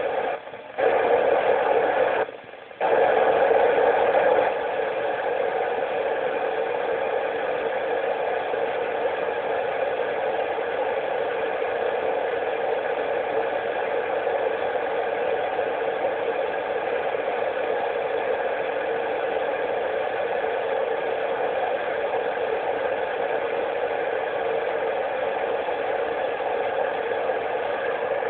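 Steady hiss of an FM radio receiver tuned to the ISS downlink near 145.80 MHz, with no voice coming through. The noise cuts out briefly twice in the first few seconds and is a little louder until about four seconds in, then stays even.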